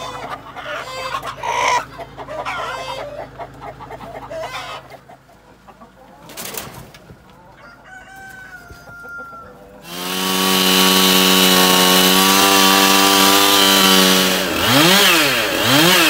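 Hens clucking and squawking while being handled, one flapping its wings. About ten seconds in a chainsaw takes over, loud and running steadily at high speed, then is revved up and down three times near the end.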